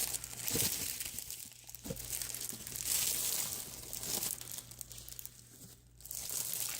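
Packaging being handled: plastic wrap and boxes crinkling and rustling in irregular bursts with light knocks as items are shifted around, going quieter about five seconds in.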